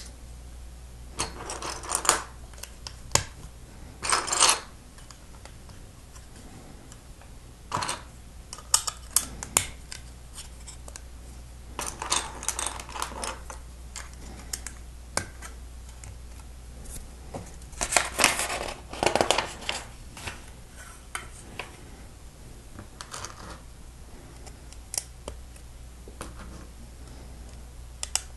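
Hard plastic Lego bricks clicking and snapping together by hand, with scattered sharp clicks and several short bursts of rattling as pieces are handled, over a steady low hum.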